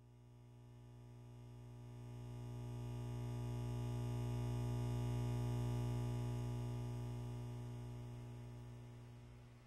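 Low, steady droning tone from a film score, swelling up to a peak about halfway through and fading away near the end.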